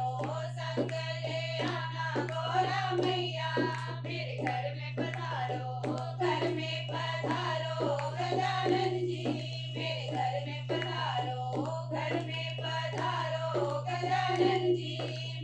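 Women and a girl singing a Hindi devotional bhajan in chorus, with hand clapping and a dholak drum keeping a steady beat, over a constant low hum.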